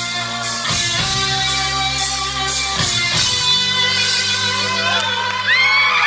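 Live rock band with amplified electric guitars holding ringing chords, changing about a second in and again near the three-second mark. Crowd whooping and cheering starts near the end.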